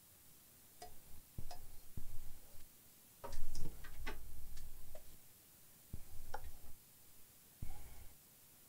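Clicks and knocks from handling an opened MacBook Air: its aluminium bottom cover is lifted away and set down, and the laptop is shifted on the bench mat. First come single sharp clicks about a second apart, then a longer stretch of rubbing and knocking in the middle, then a few more knocks near the end.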